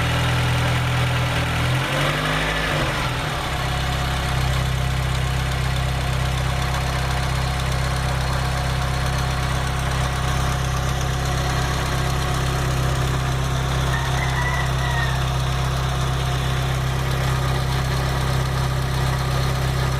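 Volkswagen Pointer engine idling steadily with an unusual noise that the owner cannot identify and that stops when the engine is revved; the owner's tags point to knocking or rod noise. About two seconds in, the engine note shifts briefly, then holds steady again.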